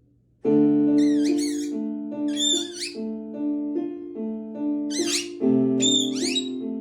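Piano background music starting about half a second in, with a pet parrot's high, wavering squeaky calls sounding over it four times.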